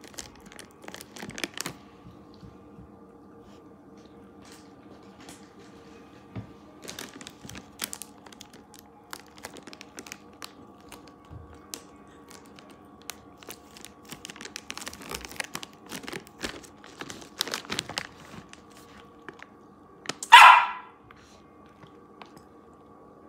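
Samoyed puppy barks once, short and loud, about twenty seconds in: a demand bark for more treats. Before it, only faint scattered clicks and taps over a low steady hum.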